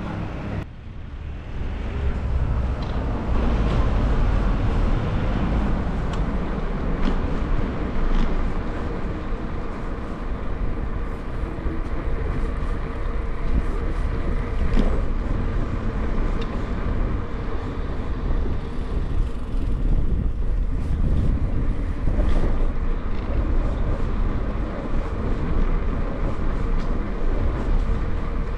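Steady wind rumble on the microphone from riding a bicycle along streets, with a few faint clicks over it. The level dips briefly about a second in, then holds steady.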